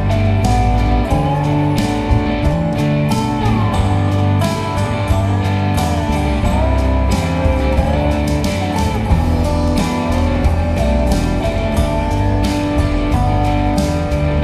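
Background music: a song with guitar over a steady beat.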